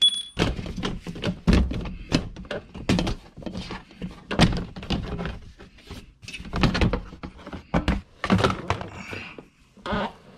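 Irregular knocks, thunks and rubbing as hands work under the car against its plastic undertray and the parts around the oil filter, with several knocks a second and no steady sound.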